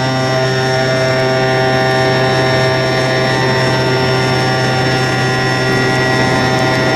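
Radio-controlled model airplane's motor and propeller running at a steady throttle: an even, buzzing drone.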